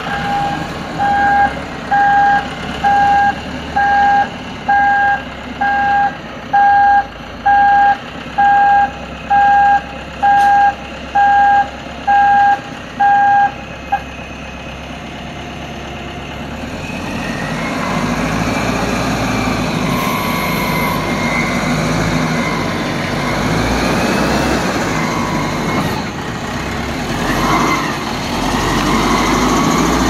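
Self-loading concrete mixer truck's Yunnei YN4102 four-cylinder diesel engine running, with its reversing alarm beeping a single tone about once a second until about halfway through. After the beeping stops, the engine grows louder as the machine drives off.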